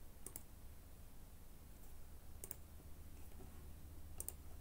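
Computer mouse button clicking three times, each click a quick press and release, spaced about two seconds apart over a faint low hum. Each click trims away a segment of a sketch curve in the CAD program.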